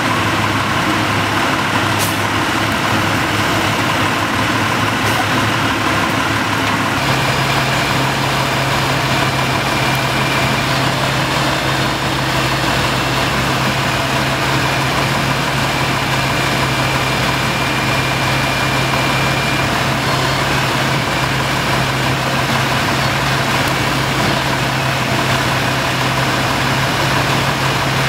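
Heavy truck's diesel engine idling. About seven seconds in, the sound shifts to a steadier, deeper hum that holds to the end.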